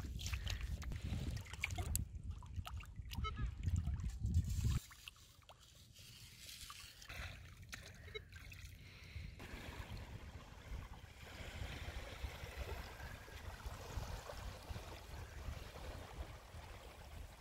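Wind buffeting the microphone as a loud low rumble with a few clicks, cutting off suddenly about five seconds in. After that, shallow seawater trickling and small waves lapping on wet sand, settling into a steady soft wash about halfway through.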